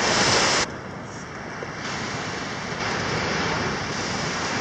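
Steady rushing wash of ocean surf with wind buffeting the microphone; a louder, hissier stretch at the very start cuts off suddenly.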